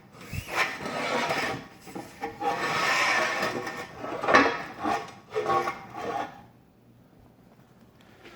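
An 8-foot straight edge scraping and sliding over a mortar floor screed in several rough strokes, stopping about six seconds in.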